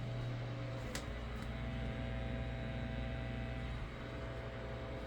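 A steady low hum with a few faint steady tones above it, and a single faint click about a second in.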